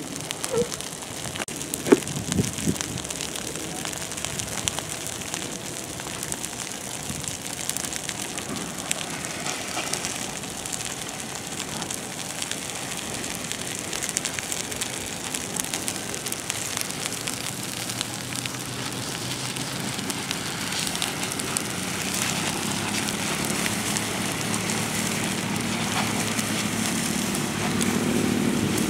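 Burning dry grass crackling, with a steady hiss and many small pops, and one sharp crack about two seconds in. In the second half a low engine drone comes in and grows louder toward the end.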